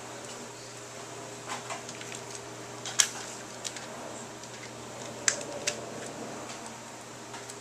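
Plastic track pieces of a Nano Habitat raceway set clicking and clacking as they are handled and clipped together: a handful of short sharp clicks, the loudest about three seconds in.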